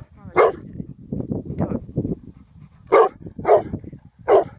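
Rottweiler barking: one deep bark near the start, then three more in the last second and a half.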